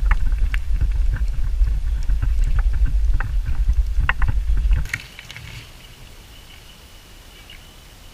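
GoPro HERO4 recording its WiFi interference noise: a loud, low, rapid throbbing with scattered pops and clicks, the 'helicopter' sound that comes from the WiFi antenna sitting beside the microphone, which the uploader puts down to a loose joint in the shielding. It cuts off about five seconds in, leaving a faint hiss and a thin steady tone.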